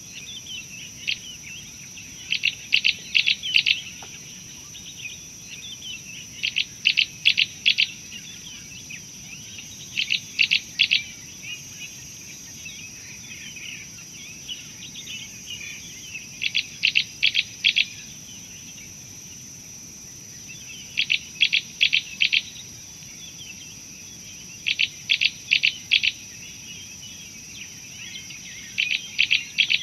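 A bird repeating a short phrase of four or five rapid, sharp notes every few seconds, with fainter bird chatter between the phrases and a steady high-pitched insect drone.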